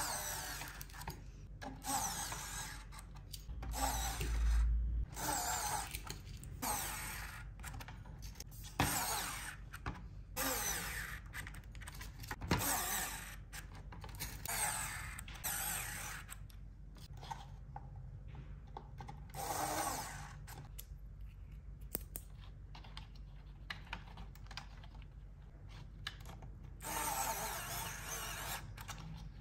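Pen-style electric precision screwdriver whirring in a dozen or so short bursts, each about a second, as it drives small screws into a digital keyboard's circuit board.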